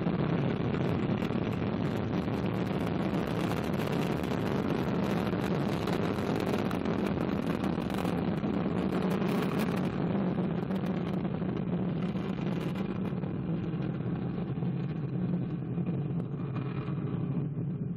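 Ariane 5 rocket climbing away just after liftoff: its two solid rocket boosters and Vulcain main engine make a steady, heavy rumble that thins out slightly near the end.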